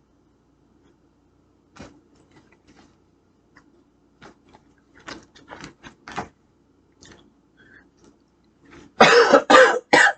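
A man coughs three times in quick succession near the end, after a few faint scattered clicks.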